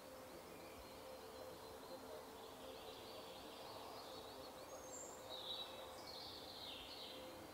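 Faint woodland ambience with birdsong: a run of short repeated chirps, with a few louder bird calls later on.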